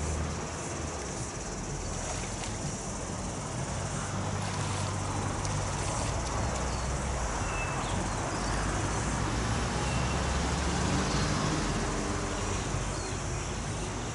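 Outdoor park ambience: a steady high buzz of insects over a low rumble of distant traffic, with two or three short bird chirps about halfway through.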